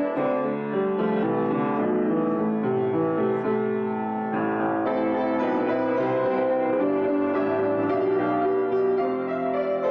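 Solo piano improvisation, many notes held and ringing over one another at an even, unhurried pace.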